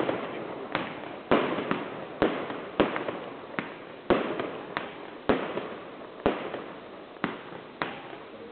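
Aerial fireworks bursting in quick succession: about a dozen sharp bangs, roughly one every half second to a second, each trailing off in a short echo.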